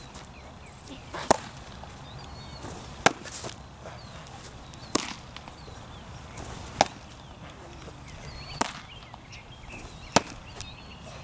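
Baseballs popping into a catcher's leather mitt, six sharp smacks about two seconds apart.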